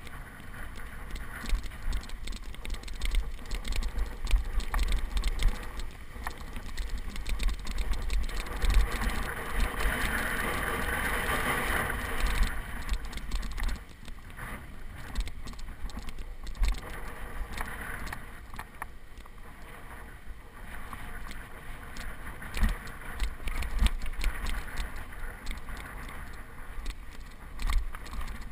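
Mountain bike ridden along a dry dirt singletrack: tyres rolling over dirt with the bike rattling and knocking over bumps, and wind on the microphone. A louder stretch comes from about nine to thirteen seconds in.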